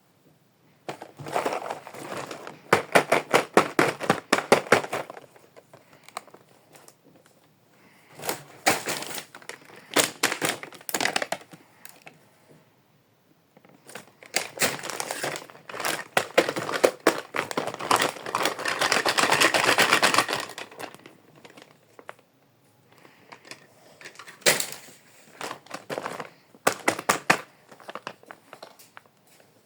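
Plastic packaging being crinkled and torn open by hand in several bursts of sharp crackling and clicking, with a longer steady rustle about two-thirds of the way through and scattered clicks near the end.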